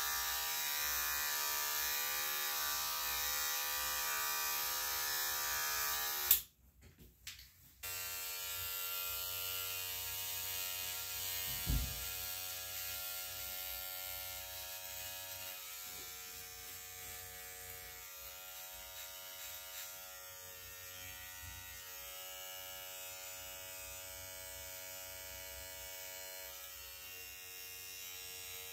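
Electric hair clipper buzzing steadily as it shaves close around the ear on the side of a head. The buzz drops out for about a second and a half a little after six seconds in, and there is a brief low thump around twelve seconds in.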